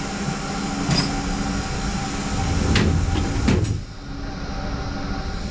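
Tools being picked up and handled: a sharp click about a second in, then a scraping rattle with a couple of knocks around the middle, over a steady fan-like hum.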